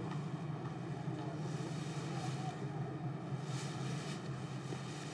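Steady low rumble of outdoor background ambience with a faint hiss over it.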